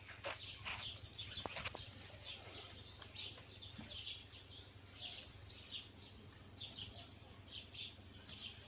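Sparrows chirping, many short high chirps overlapping continuously, with a couple of faint clicks in the first two seconds.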